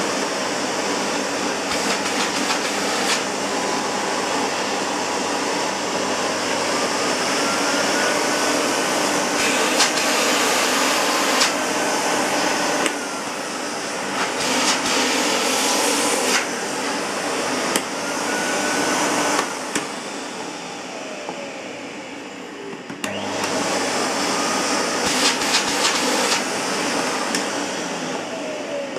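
A 1984 Hoover Sensotronic System 2 vacuum cleaner running. Its motor pitch drifts up and down several times, with a few sharp knocks and clicks. It runs quieter for a few seconds past the middle and then comes back up.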